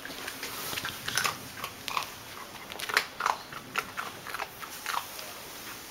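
A dog hidden inside a plush tiger toy snapping and play-biting at a poking finger: an irregular run of short, sharp snaps and clicks.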